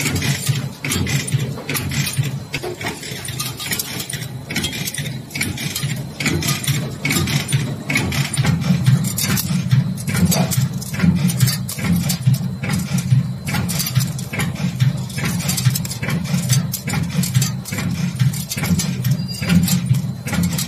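High-speed cold-forging machine (bolt and nut former) running: a steady low machine hum under rapid, irregular metallic clacking from the forming strokes and parts.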